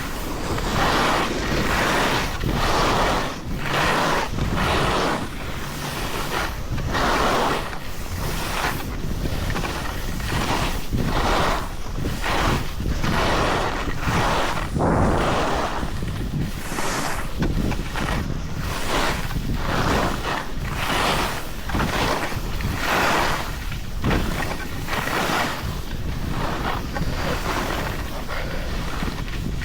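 Skis carving and scraping over snow in a steady run of turns, a rush of noise about once a second, with wind buffeting the microphone.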